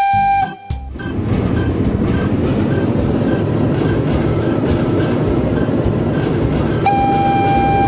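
Cartoon train running along the rails: a loud rushing rumble with regular clicks, about four a second. A long steady tone comes in near the end.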